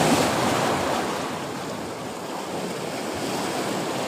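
Sea waves washing against concrete breakwater blocks, surging loudest at the start and then easing to a steady wash.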